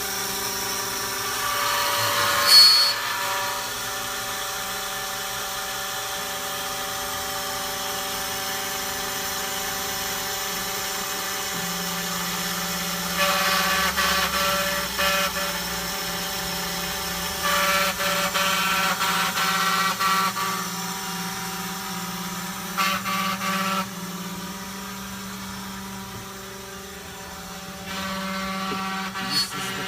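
Electric key-cutting machine running with a steady motor hum. Its cutter bites into a Ford flip-key blade in three louder, harsher spells around the middle.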